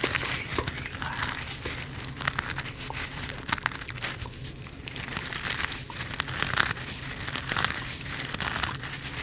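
Hacky sack squeezed and crunched in the hands, a dense, irregular crinkly crackling with many sharp clicks.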